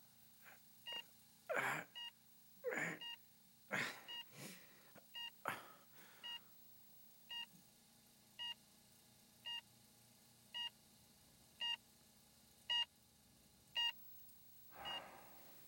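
Hospital patient monitor beeping steadily about once a second, the heartbeat tone of a patient in a coma. Several loud breathy rushes of noise break in over the first six seconds, and one more comes near the end.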